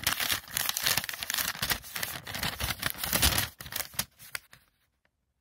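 Paper instruction leaflet rustling and crinkling as it is unfolded and handled, dense for about three and a half seconds, then thinning to a few rustles and stopping.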